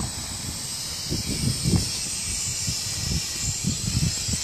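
Syma X5SW quadcopter's motors and propellers running with a steady high hiss whose pitch wavers slightly as the drone manoeuvres. Gusts of wind buffet the microphone underneath.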